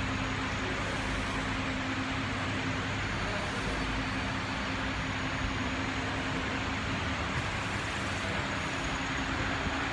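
Steady machine hum with air noise, with a faint steady low tone underneath: electrical or fan equipment running in a large room.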